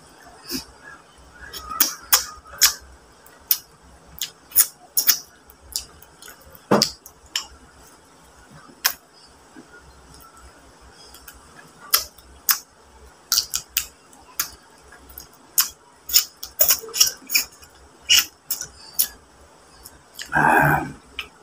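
A person eating a cooked mud crab by hand: irregular sharp clicks and smacks from crab shell being picked apart and from chewing and lip-smacking. A short hum or vocal sound comes near the end.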